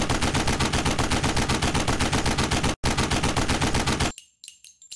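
Machine-gun fire sound effect: a long rapid burst of about ten shots a second, broken by a very short pause partway through. It cuts off suddenly about four seconds in, leaving faint metallic clinks.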